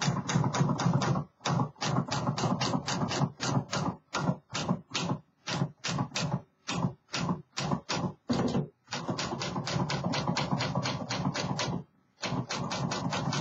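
1957 Remington Quiet-Riter portable manual typewriter being typed on: a fast run of sharp key strikes, about five a second, broken by a few short pauses.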